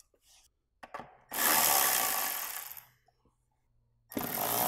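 Handheld power tool run in two short bursts of about a second and a half each, with a couple of clicks before the first, backing out the bolts that hold the wheel-well shroud.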